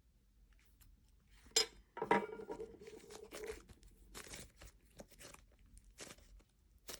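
Hands squishing and stretching butter slime made of Model Magic clay and lotion, giving soft tearing and crackling sounds in irregular bursts, starting with a sharp one about a second and a half in.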